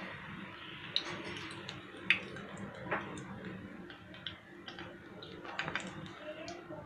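Besan-batter-coated pea-pod fritters deep-frying in hot oil: a steady sizzle with scattered sharp pops and crackles, a few of them louder.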